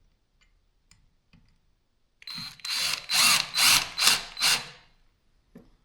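Power driver spinning Torx screws into a cordless drill's plastic housing, run in about six quick trigger bursts over a couple of seconds, preceded by a few faint clicks of handling.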